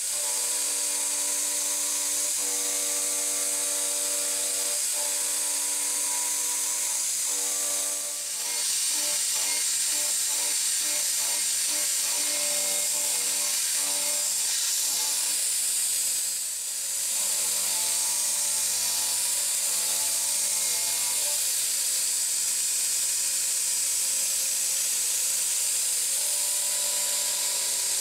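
CNC milling machine's end mill cutting aluminium, a steady whine of several tones over the strong hiss of mist-coolant spray nozzles. The sound dips briefly twice, about a third and two thirds of the way through.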